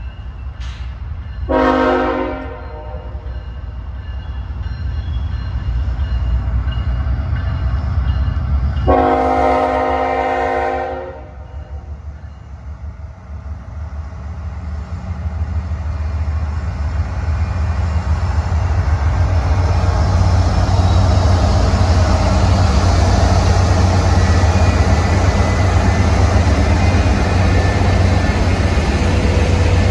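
CSX diesel locomotive horn sounding a short blast about 2 s in and a longer blast about 9 s in, followed by the lead locomotives' diesel engines and wheels on the rails growing louder as they pass close by.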